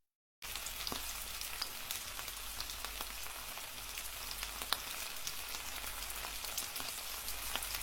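Steady crackling hiss with scattered small pops, starting about half a second in.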